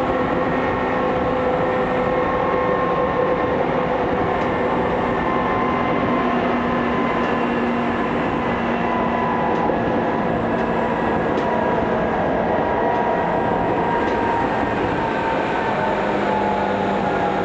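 Tokyu 2000 series electric train running, heard from inside the carriage: a steady rumble of wheels on rail with the traction motors' whine in several steady tones, which drop slightly in pitch near the end.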